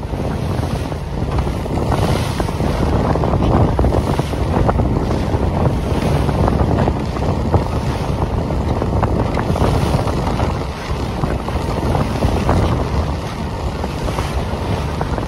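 Strong wind buffeting the microphone over choppy water, with waves splashing against a boat moving into a headwind.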